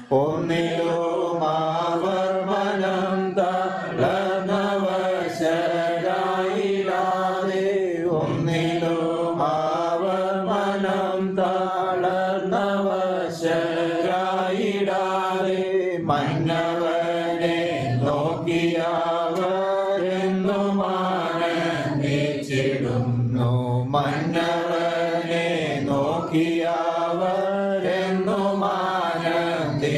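Congregation singing a slow Malayalam hymn, sung lines running on without a break.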